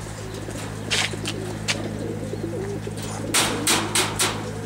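Racing pigeons cooing in wire transport crates over a steady low hum. Short sharp noisy bursts come about a second in and four more close together near the end.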